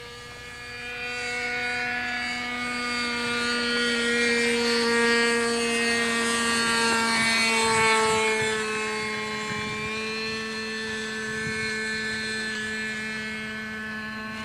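The OS .46 two-stroke glow engine and propeller of a radio-controlled model airplane, running steadily in flight. The engine note grows louder over the first few seconds, peaks as the plane passes, shifts in pitch about eight seconds in, then fades a little as it flies away.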